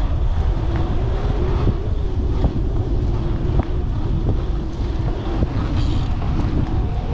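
Wind buffeting the camera microphone while riding a road bike at speed: a steady low rumble of noise, with a few faint clicks.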